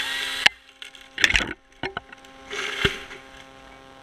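Chainsaw cutting through a pine trunk stops abruptly, then two loud wooden cracks and thumps about a second and a half apart as the topped section breaks away and falls.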